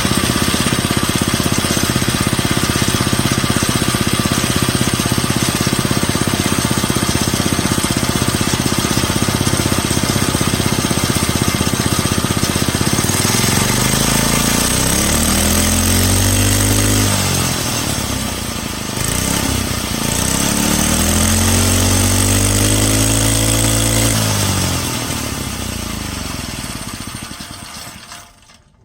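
Pocket bike engine idling steadily, then revved twice, each time rising in pitch and falling back. It then dies away near the end.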